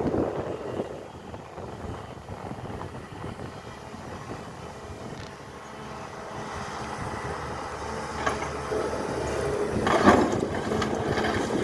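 SANY excavator running and working, a steady engine sound that fades somewhat and then builds louder again, with sharp knocks about eight and ten seconds in.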